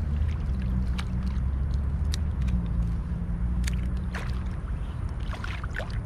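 Light splashing and dripping as a peacock bass is handled and lifted in shallow water, with a few short clicks and slaps, over a steady low rumble.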